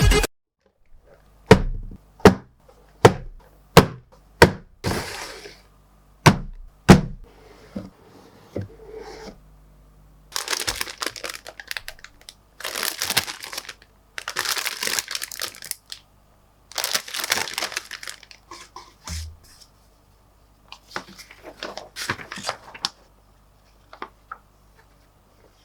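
Unboxing a plastic model kit: a string of sharp knocks and taps from the cardboard box being opened and handled, then several longer bursts of crinkling as the plastic bags holding the parts runners are handled, with fainter crinkles near the end.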